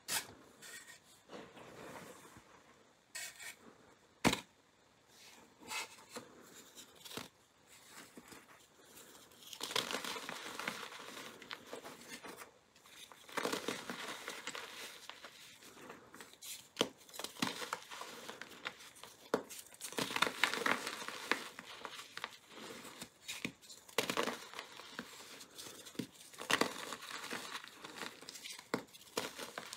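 Gym chalk blocks coated in colored powder and glitter being crushed and crumbled by hand in a heap of loose chalk powder. A few sharp snaps come first, then dense crumbly crunching from about ten seconds in, in repeated bursts as handfuls are squeezed.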